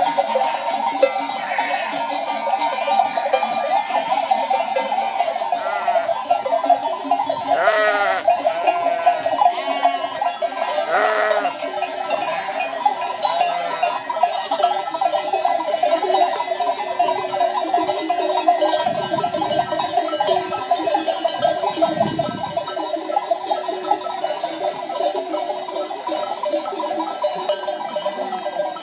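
Dozens of traditional Provençal sheep and goat bells (platelles, piques, clavelas, redons) clanking together without pause as a large flock of Merino d'Arles sheep and Rove goats walks along. A few sheep bleat over the bells, most clearly about eight and eleven seconds in.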